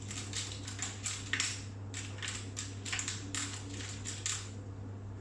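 Hands working Play-Doh and craft pieces on a tabletop: a run of short, irregular rustling and scraping noises that stop about four seconds in.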